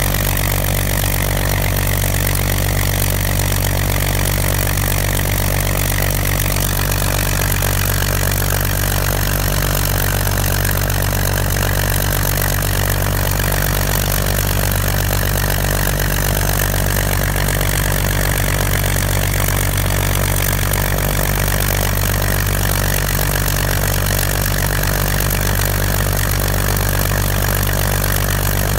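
Spitfire FR XIV's Rolls-Royce Griffon V12 engine idling steadily on the ground, its pitch holding even.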